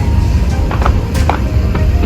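Fireworks bursting and crackling, several sharp bangs a second, over loud music and a steady deep rumble.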